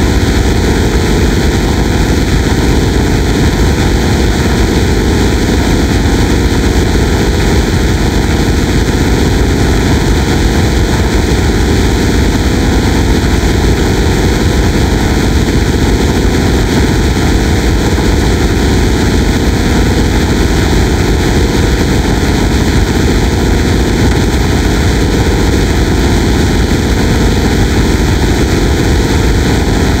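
Synthesized pulse sound effect: a loud, fast-pulsing low buzz that holds steady without change.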